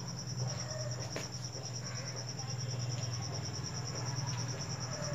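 A cricket chirping in a steady, evenly pulsed high trill over a low steady hum, with a few faint chalk taps and scratches on a blackboard as words are written.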